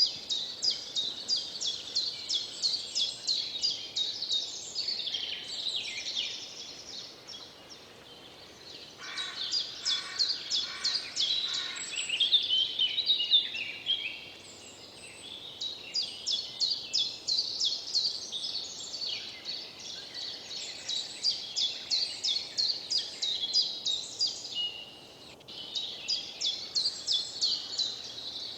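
Songbirds singing: several-second phrases of rapid repeated high notes with short pauses between them, and a second, lower repeated call for a few seconds about a third of the way through.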